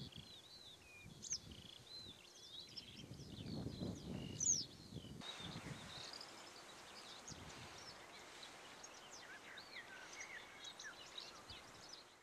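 Several songbirds chirping and singing, with gusts of wind rumbling on the microphone during the first five seconds. About five seconds in the background changes abruptly to a steady hiss, and the birdsong goes on over it.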